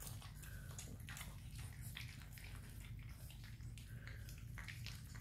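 Rottweiler puppies, about two and a half weeks old, licking and chewing at a lump of raw ground meat: quiet, irregular wet smacking and clicking over a low steady hum.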